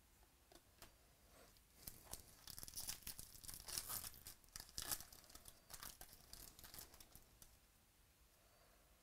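Foil wrapper of a baseball card pack being torn open and crinkled by hand: a run of crackling tears from about two seconds in, loudest in the middle, dying away after about seven seconds.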